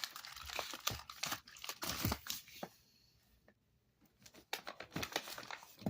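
Crinkling and rustling of wrappers as wrapped firework cakes are handled, with irregular light clicks and a knock about two seconds in. It goes quiet for a second or two past the midpoint, then the rustling resumes.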